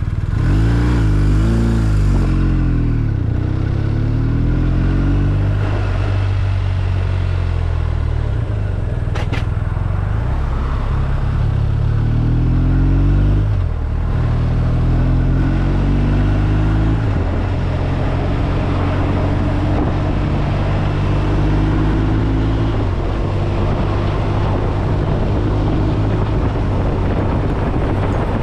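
BMW R1250RT's flat-twin engine running under way, its pitch rising and falling several times as the rider opens and closes the throttle.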